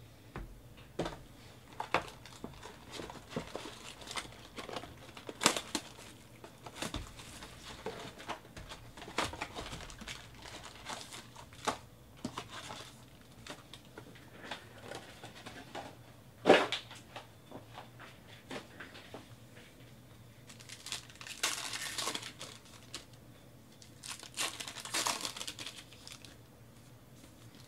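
Sports-card packs being handled and torn open by hand: cardboard and wrapper rustling with scattered sharp taps, one loud snap about two-thirds of the way in, and two longer rips of pack wrappers tearing near the end.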